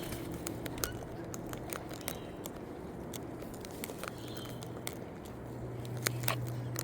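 Wild birds pecking at and cracking scattered seed, heard as irregular sharp clicks and cracks over a faint steady low hum.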